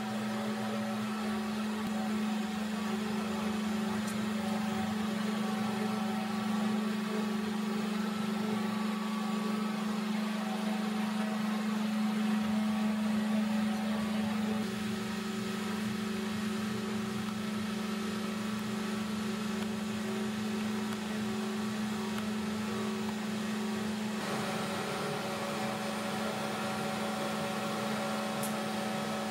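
Steady electric machine hum: one constant droning tone with fainter overtones over a soft hiss, shifting slightly about 15 s and again about 24 s in.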